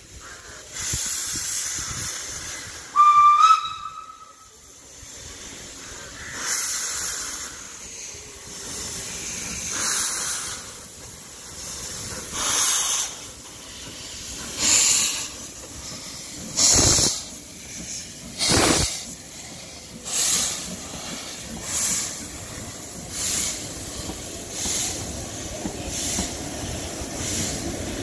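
Steam whistle blown briefly about three seconds in, then Isle of Man Railway No 4 Loch, a Beyer Peacock 2-4-0T steam tank engine, getting its train away: slow exhaust chuffs that gradually quicken as it gathers speed, over a steady hiss of steam from the open cylinder drain cocks.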